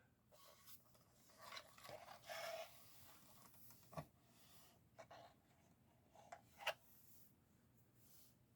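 Near silence with faint handling of a small plastic toy playset: light rubbing and scraping, and a few soft clicks, the clearest about four seconds in and again near seven seconds.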